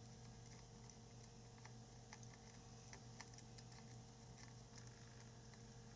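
Near silence: a steady low electrical hum with faint, scattered small ticks and clicks of tools handled on the workbench, the sharpest about five seconds in.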